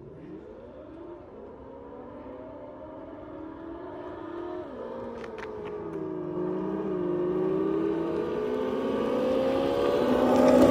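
Segway Ninebot electric go-karts driving up the street: a whine that rises and falls in pitch with their speed and grows louder as they approach.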